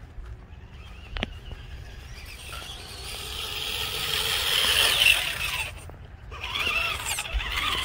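Axial Wraith Spawn RC rock crawler's electric motor and freshly fitted steel transmission gears whining at full throttle. The high whine builds from about two and a half seconds in, breaks off briefly around six seconds, then comes back, running smoothly with no grinding. A short click about a second in.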